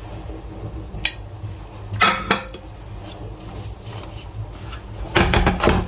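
Kitchen utensils and cookware clinking: a knock about a second in, a ringing clink about two seconds in, and a quick clatter of several strikes near the end, over a low steady hum.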